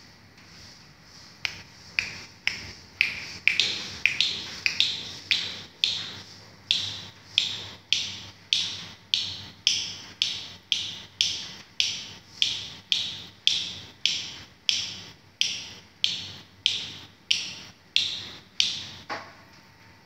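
A person snapping their fingers in a steady rhythm, about three snaps every two seconds. Each sharp snap is followed by a short, high, falling squeak. The snaps start about a second and a half in and stop about a second before the end.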